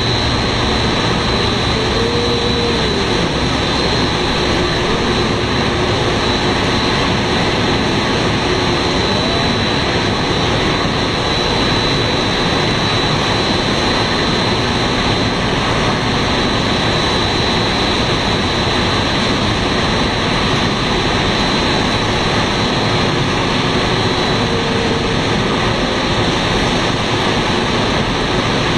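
Steady, even roar of a running 3D snack pellet extrusion line, the extruders, forming machines and conveyors all working at once.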